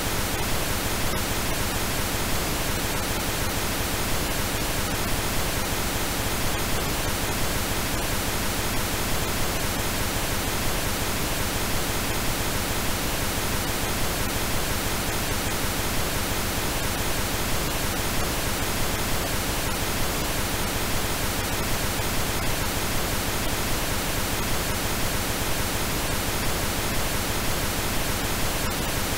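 Steady synthesized pink noise: an even, unbroken hiss across all pitches with faint steady tones woven into it.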